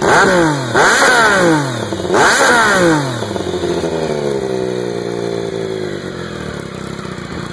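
Triumph Daytona 955i's inline three-cylinder engine, breathing through a D&D slip-on exhaust, revved in three quick throttle blips, each rising sharply and falling back, then dropping slowly back to idle.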